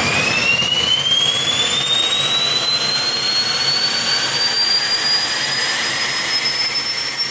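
Small T62 gas turbine engine spooling up: a high whine climbs steadily in pitch and levels off near the end, over a steady rush of air.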